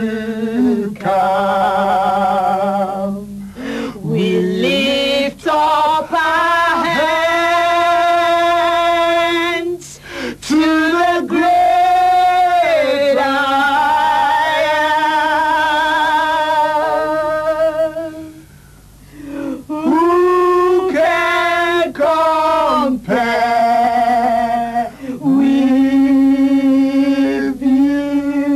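A man and a woman singing a slow praise chorus together, drawing out long held notes; the line ends on the word "come" about two seconds in. The singing breaks off briefly about two-thirds of the way through, then resumes.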